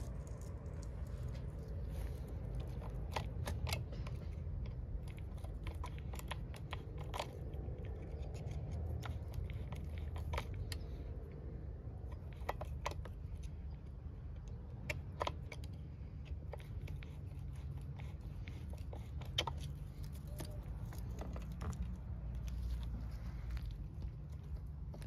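Irregular metal clicks and light rattles of a saw chain and chainsaw bar being handled and fitted, with a screwdriver working the chain-tensioning screw. A low steady rumble lies underneath.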